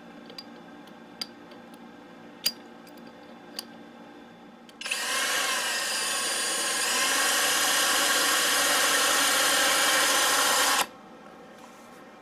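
A few sharp clicks, then a power drill runs steadily for about six seconds, getting a little louder partway through, and stops abruptly.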